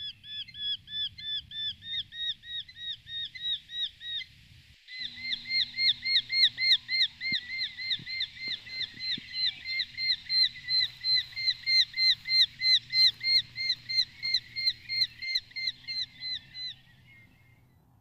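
A bird calling: a fast, even series of short, identical chirps, about three a second, with a brief break about four and a half seconds in and stopping shortly before the end.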